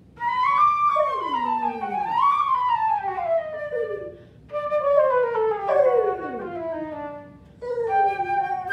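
Flute playing scale runs in three phrases that mostly descend in pitch, with a dog howling along in long sliding tones.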